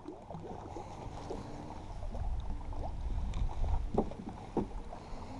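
Choppy water lapping and slapping against the hull of a fibreglass bass boat, with two short knocks on the boat about four seconds in.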